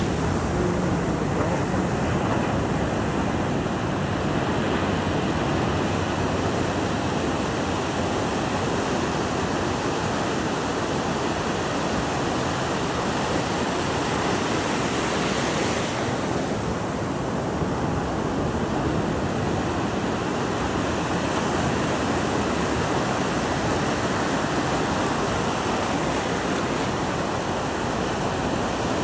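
Ocean surf breaking and washing up the beach: a steady rush of foaming waves.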